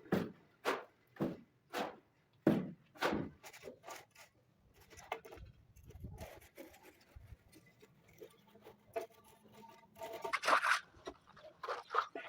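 Rhythmic scraping strokes of a tool on concrete, about one every half second or so for the first four seconds. Then come quieter, irregular scrapes and knocks, and a louder rasping burst about ten seconds in.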